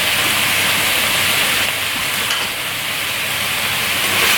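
Chicken and green curry paste sizzling steadily in hot oil in a pan.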